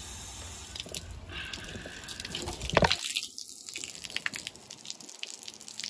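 Water from a garden-hose rinse dripping and splattering off a ceramic mug onto concrete, in many small irregular drips, with one louder hit nearly three seconds in. The rinse is washing the dish-soap foam off the freshly spray-painted mug.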